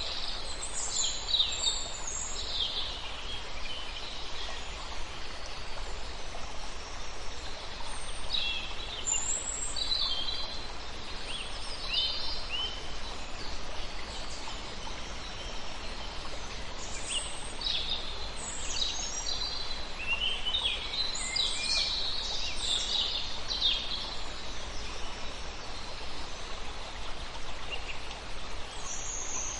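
Songbirds chirping and calling in scattered bursts over a steady background hiss, the calls busiest at the start, about eight to thirteen seconds in, and again from about seventeen to twenty-four seconds in.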